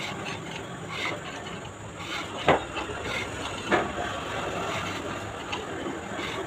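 Hand reamer being turned through freshly fitted bushes in a Mahindra 575 DI tractor front axle, with metal scraping as it cuts. Two sharp clicks stand out about a second apart near the middle.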